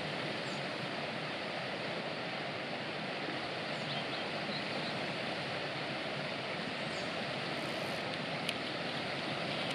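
Steady rushing of river water, even and unbroken, with a few faint high chirps about halfway through and a single sharp click near the end.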